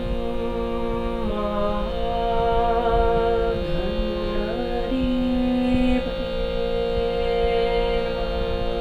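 A voice singing slow, sliding notes over a steady, many-toned drone, in a calming music-therapy style; the melody stops about six seconds in and the drone carries on alone.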